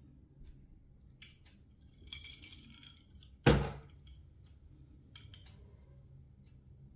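A knife blade drawn along a steel honing rod in a few short metallic scraping strokes that ring. A single loud knock comes about halfway through.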